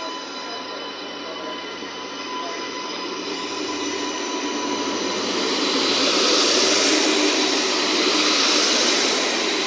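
Adelaide Metro 3000/3100 class hybrid railcar moving off and passing close by. Several steady whining tones from its drive sit over running-gear and wheel noise, growing louder as the cars go past. A high hiss peaks about six to nine seconds in.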